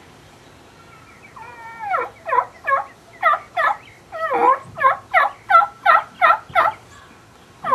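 A man imitating a wild turkey's yelp with his bare mouth and no call or diaphragm: the lost call of a young turkey or hen scattered from the flock, trying to regroup. After about a second of quiet, a run of about a dozen short yelps, each falling in pitch, about three a second.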